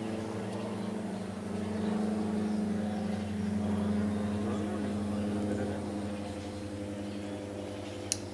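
A steady engine hum runs throughout, swelling slightly in the middle and easing off later. A single sharp click sounds near the end.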